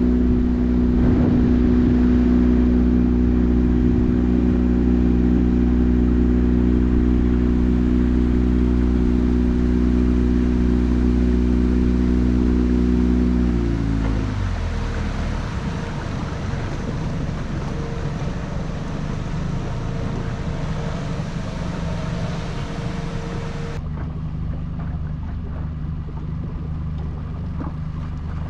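A small motorboat's engine runs steadily, then throttles back about halfway through, its pitch dropping and the sound getting quieter. A lower, steady engine note goes on under a hiss.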